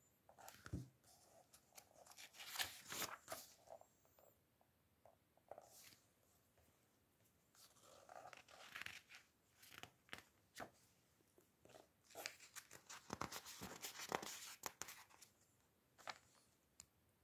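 Paper pages of a book being handled and turned by hand, in three spells of crackly rustling, the longest near the end.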